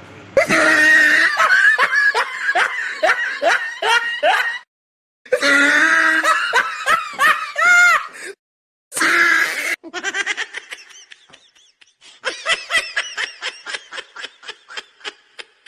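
Rapid, high-pitched laughter in quick rhythmic pulses, in several stretches broken twice by abrupt cuts to silence.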